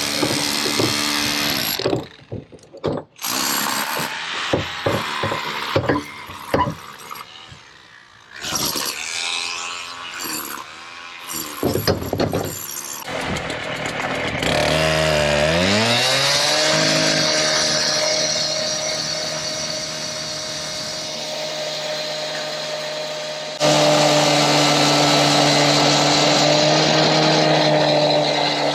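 Knocks and clatter, then a power tool motor spins up with a quickly rising whine about halfway through and runs at a steady pitch. It gets louder for the last five seconds or so.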